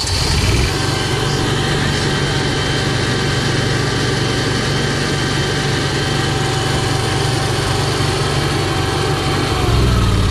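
Cummins Onan RV QG7000 gasoline generator catching and running steadily, a steady thin whine over its hum. Near the end it gets a little louder and the whine slides down in pitch.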